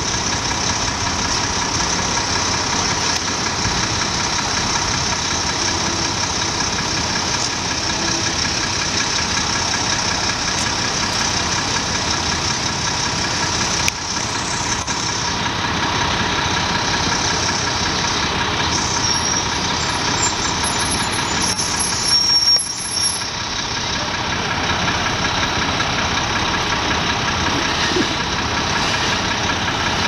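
Mack dump truck's diesel engine idling steadily amid street traffic, with a brief louder noise about three-quarters of the way through.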